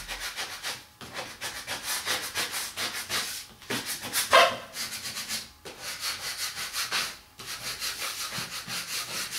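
Squeegee rubbed over the backing of a vinyl wall decal: runs of rapid, scratchy back-and-forth strokes broken by a few short pauses, with one louder, squeakier stroke a little over four seconds in.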